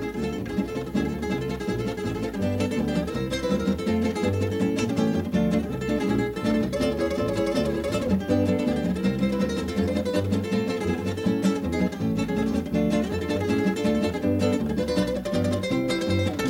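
Acoustic guitar playing an instrumental break: quick picked melody notes over a moving line of bass notes.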